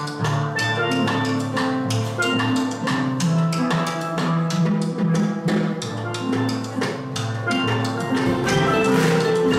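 Steel pan ensemble playing a tune, several pans sounding ringing pitched notes together, with a snare drum and drum kit beating out a busy, steady rhythm.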